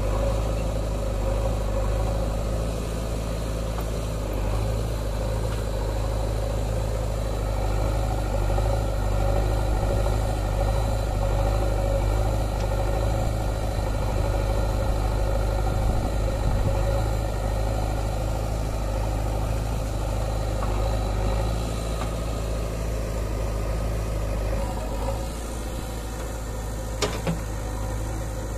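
JCB backhoe loader's diesel engine running steadily while it digs and loads soil. A single sharp knock comes near the end.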